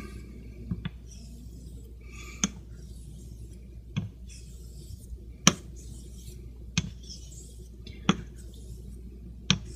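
Straight razor with a near-wedge grind honed on a Shapton Pro synthetic waterstone during bevel setting. A faint scraping of the stroke is broken by a sharp click about every one and a half seconds as the blade is rolled over on its spine at the end of each stroke.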